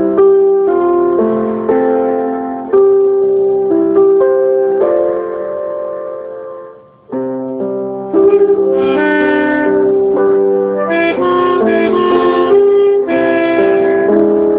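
Piano accompaniment: struck notes and chords that ring and fade, dying away a little before halfway. Then an alto saxophone comes in with a slow melody of held notes over the piano.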